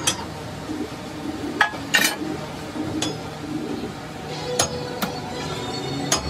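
Sharp metallic clanks and clinks at irregular spacing, about one a second and loudest about two seconds in, as the heavy steel lid and handwheel of a round pressure vessel are worked by hand, over a low steady workshop hum.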